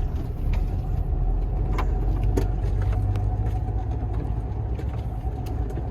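Semi-truck's diesel engine running low and steady inside the cab, with a few scattered knocks and rattles as the tractor unit bounces over a rough road.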